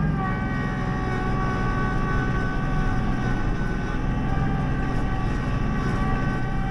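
Kubota LX2610 compact tractor's three-cylinder diesel engine running steadily as the tractor moves off.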